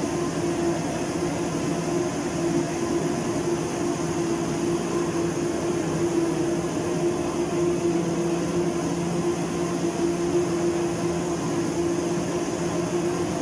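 Steady hum of running factory machinery on an aluminium tube production line, a constant low drone with a strong steady tone and no pauses or impacts.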